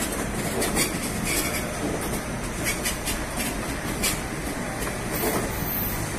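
Train running through a railway station: a steady rumble with scattered sharp clicks of wheels over the track joints.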